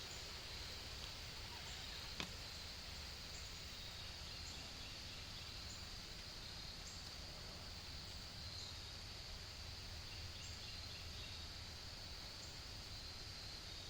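Faint outdoor nature ambience: a steady high-pitched drone with short high chirps repeating about once a second, and a single click about two seconds in.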